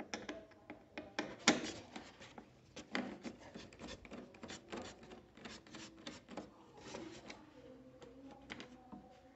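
Phillips screwdriver turning screws out of a motorcycle's plastic front panel: irregular clicks and scraping, with one sharper click about one and a half seconds in, thinning out near the end.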